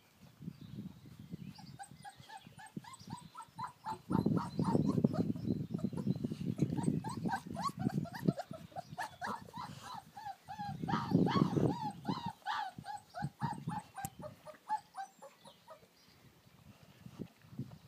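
American Akita puppies yipping and whimpering in play: many short, high, squeaky cries in quick succession. Twice, from about four seconds in and again around eleven seconds, a louder low rumbling noise runs under them.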